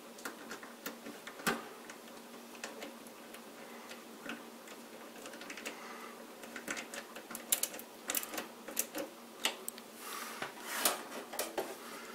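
Screwdriver and screws fastening a motherboard to its case standoffs: irregular small metallic clicks and ticks, coming more often in the second half, with a few short scraping turns near the end.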